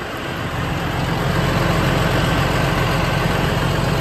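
Engine idling with a steady low hum that grows louder about a second in, over an even hiss.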